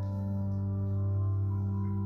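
Slow organ music of long held chords, with a new chord coming in at the start.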